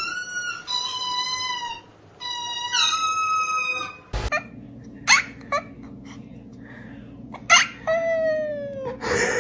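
Cat vocalizations. First comes a long, high, drawn-out call in three stretches that holds a level pitch and steps up and down. Then, after an abrupt change about four seconds in, short chirps are followed by a long falling meow near the end.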